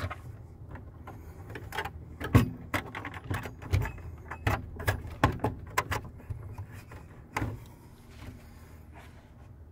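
Scattered clicks, knocks and rattles of gloved hands handling wires and fittings inside a metal transfer-switch enclosure, over a steady low hum. The clicks come thickly for the first several seconds and thin out near the end.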